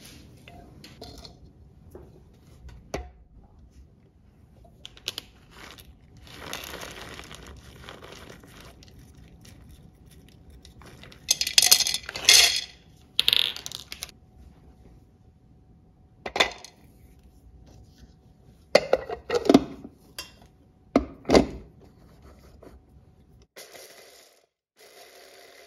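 Kitchen dishes and utensils being handled: scattered clinks, knocks and scrapes, with a bunch of louder clattering a little before halfway and a few sharp knocks about three-quarters through.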